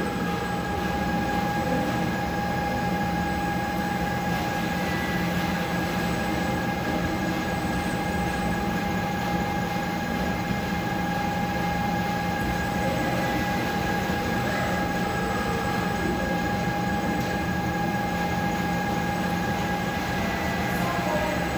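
A concrete 3D printing rig running with a steady mechanical drone and a constant high whine.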